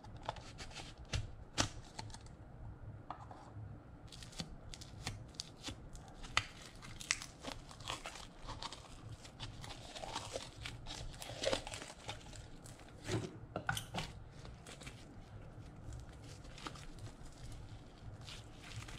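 Blue slime being pulled out of a plastic cup and stretched by hand, with a steady run of sticky crackles and small pops as it peels and pulls apart.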